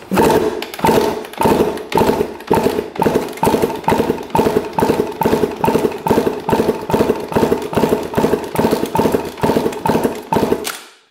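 Honda CR125 two-stroke single-cylinder engine being kicked over during a compression test, a rhythmic pulsing at about two beats a second that stops abruptly near the end.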